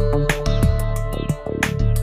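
Background music with a steady beat, deep thudding drum hits and long held notes.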